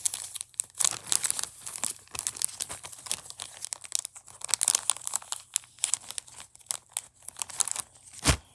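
A thin clear plastic bag being handled close to the microphone, crinkling and crackling in quick irregular bursts, with one sharper knock near the end.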